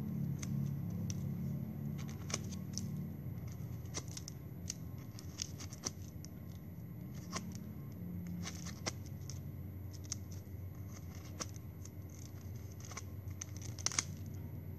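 Plastic drinking straws being handled and bent into shape, giving scattered small clicks and crackles, with a couple of sharper clicks near the end.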